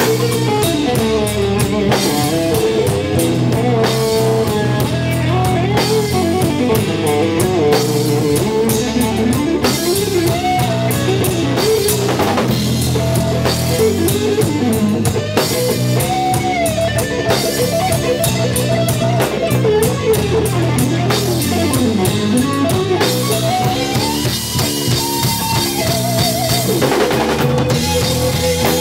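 Live instrumental jazz-rock fusion band playing: an electric guitar runs fast lead lines with bends and vibrato over a busy drum kit, with a quick trill near the end.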